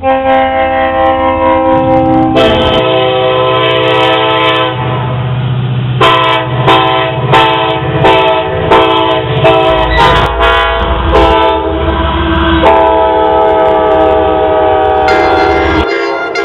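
Diesel locomotive air horns sounding, chords of several tones, switching abruptly from one horn to another a few times. A long blast opens, then a run of short blasts about a second and a half apart follows, then long blasts again.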